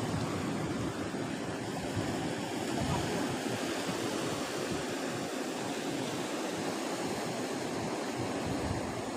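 Steady rush of sea waves washing against rocks, an even noise with no distinct breaks.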